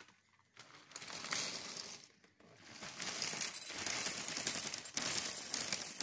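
All-Bran sticks poured from the packet into a white ceramic bowl: a dense rattle of many small dry clicks that builds up about halfway through.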